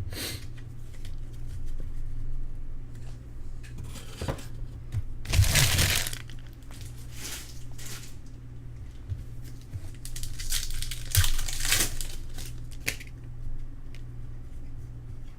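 Foil wrappers of Prizm trading card packs crinkling and tearing as packs are ripped open and handled, in several separate bursts, the longest about five seconds in.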